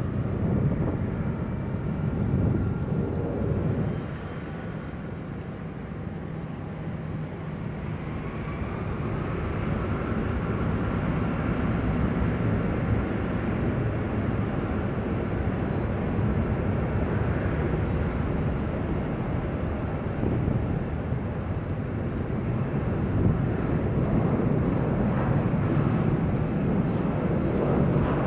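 Airbus A340-600's four Rolls-Royce Trent 500 jet engines spooling up for takeoff: a faint rising whine about eight seconds in, then a low rumble that grows louder as the airliner rolls down the runway.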